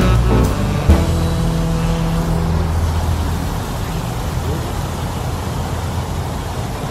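Background music with held notes ends about two and a half seconds in, with a single click near the start. After that comes a steady outdoor rumble and hiss that carries on to the end.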